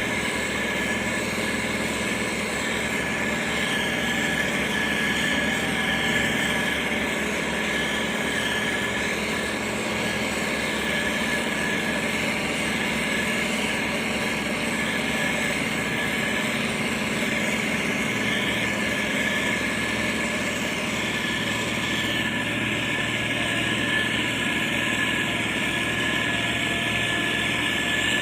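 Motor grader's diesel engine running steadily, with a steady high whine over the engine noise.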